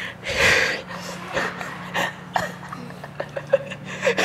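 A short, forceful breathy exhale right into a clip-on microphone held at the mouth, followed by scattered small handling clicks.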